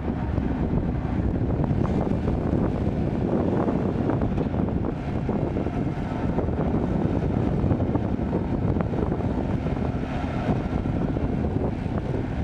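Kobelco hydraulic excavator's diesel engine running steadily under work, a dense low rumble with wind on the microphone.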